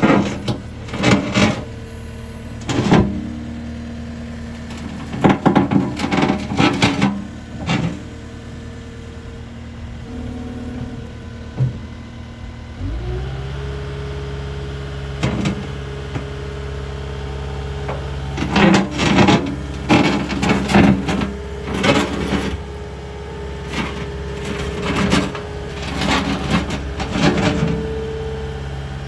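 A 2018 CAT 259D skid steer loader's diesel engine running, with repeated clusters of knocks and rattles from the machine being worked. About 13 seconds in the engine speeds up and holds the higher speed.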